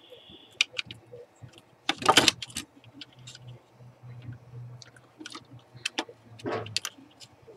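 Clicks and rattles of a Fluke 8020B multimeter's plastic case and circuit board being handled and fitted back together, with a louder clatter about two seconds in and another near the end.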